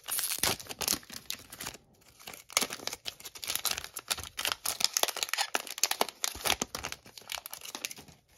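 Foil wrapper of an Upper Deck hockey card pack being torn open and crinkled in the hands, in irregular crackling rustles with a short pause about two seconds in.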